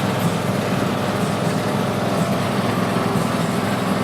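Small park ride train running along steadily, its engine giving a continuous low rumble under the general running noise.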